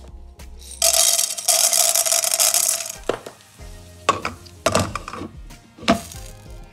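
Dry popcorn kernels poured into a non-stick pan, rattling loudly for about two seconds, then several clanks as a glass lid is set on the pan. Faint background music plays underneath.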